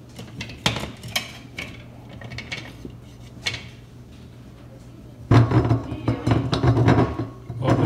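Dishes and cutlery clinking and clattering: scattered single clinks at first, then a louder, busier stretch of clatter from a little past five seconds in.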